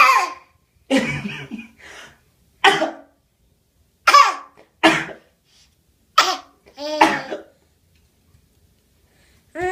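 A baby putting on a fake cough: a string of about eight short, forced, high-pitched coughs, roughly a second apart. A longer baby vocal sound starts right at the end.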